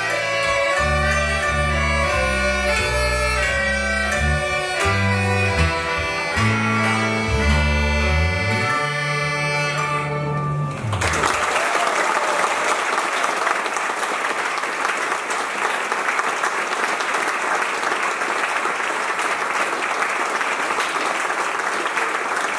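Folk band of Czech bagpipes (dudy), fiddles, cimbalom and bass guitar playing the last bars of a tune over a stepping bass line, ending on a held chord about eleven seconds in. Audience applause follows for the rest.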